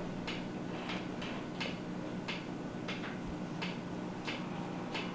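Regular faint ticking, about three ticks every two seconds with softer ticks in between, over a steady low hum.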